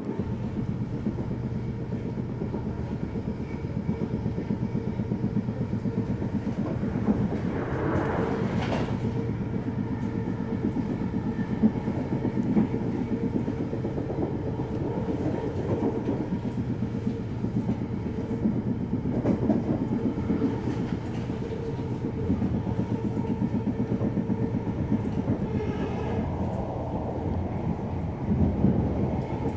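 Running noise heard from inside a Siemens Nexas electric suburban train: a steady rumble of wheels on the rails with a steady hum, and a brief louder rush about eight seconds in.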